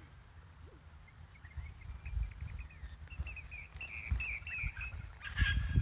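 Small birds chirping in the bushes, with a quick run of twittering notes about three seconds in, over a low rumbling noise; a brief rustle near the end.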